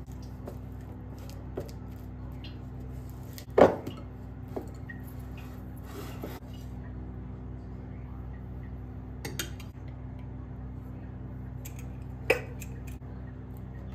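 Silicone spatula working cream cheese and sugar in a glass mixing bowl by hand, with a few sharp clinks against the glass, the loudest about three and a half seconds in and another strong one near the end.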